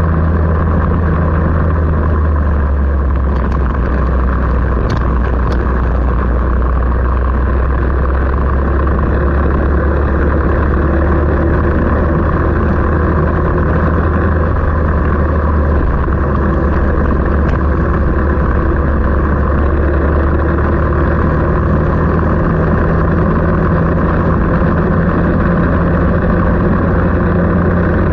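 An engine running steadily at an almost constant speed, with a few faint clicks a few seconds in.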